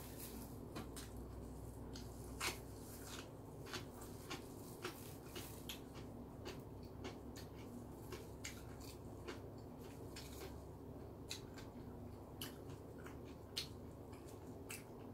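A person chewing seafood pizza close to the microphone: irregular wet clicks and smacks several times a second, the sharpest about two and a half seconds in and near the end, over a steady low hum.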